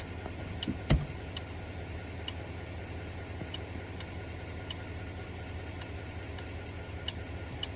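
A geared hand crank being wound slowly, its gear giving light, irregular clicks about once a second, with one louder knock about a second in. An engine idles steadily underneath.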